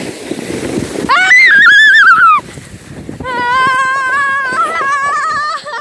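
A person screaming while sledding down a snowy slope: a very high, wavering shriek about a second in, then a longer, lower, wavering scream held to the end. Before the screams there is a rushing noise of the sled sliding over the snow, with wind on the microphone.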